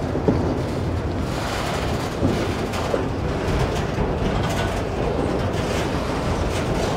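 Freight train of enclosed autorack cars rolling past: a steady rumble of steel wheels on rail, with a few sharp clunks from the cars.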